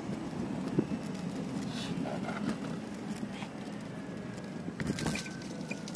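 Steady rolling rumble of small wheels and tyres on concrete paving slabs from a group of electric scooters, electric skateboards and an e-bike riding along together. A sharp click comes just under a second in and another near five seconds.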